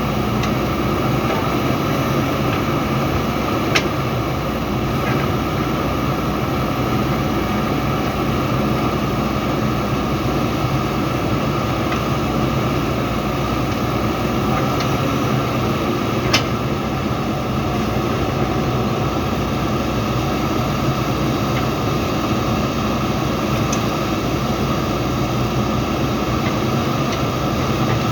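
Diesel engine of a JCB 3DX backhoe loader running steadily under work, with two short sharp knocks, one about four seconds in and one about sixteen seconds in.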